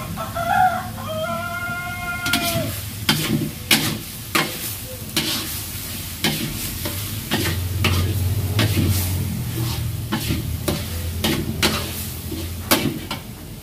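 A metal spatula scraping and clinking against a wok as a spice paste is stirred and fried over a wood fire, in irregular sharp strokes about every half-second to a second. Before the stirring starts, a pitched tone sounds twice, the second time longer.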